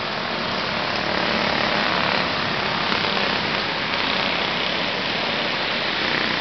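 Small kid kart engines running during a race, a steady, continuous engine noise with no clear single pitch.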